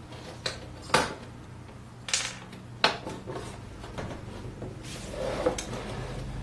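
Black plastic case of a Philips GF 110 portable record player being opened by hand, with four sharp clicks and knocks in the first three seconds. About five seconds in comes a softer scraping as the turntable deck slides out of the case.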